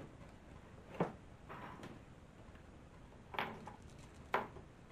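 Knocks and scraping of a pet window enclosure being worked into a window frame, its pins sliding into the sash channel: three sharp knocks, about a second in, past the middle, and near the end, with softer scraping between.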